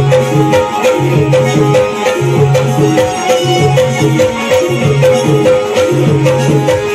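Live Shakti-tura folk music from the Konkan, with a keyboard melody over a steady hand-drum rhythm.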